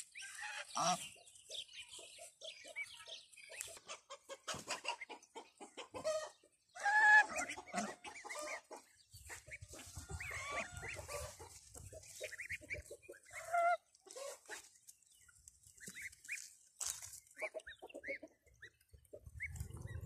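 Domestic geese and their goslings calling: a scatter of short soft calls and peeps, the loudest about a third of the way in and again about two-thirds through.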